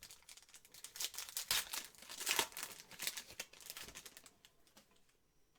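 Foil wrapper of a trading-card pack being torn open and crinkled by hand: a dense run of crackles that dies away about four and a half seconds in.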